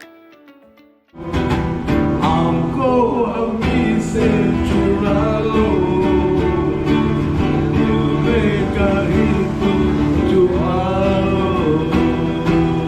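Background music: a song with a singing voice over acoustic guitar. It comes in loud about a second in, after a soft, quiet passage.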